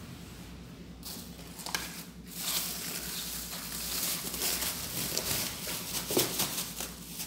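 Thin plastic rubbish bag rustling and crinkling as it is gathered up and pulled out of a small plastic bin. The crinkling starts about two seconds in, with a sharper crack near the end.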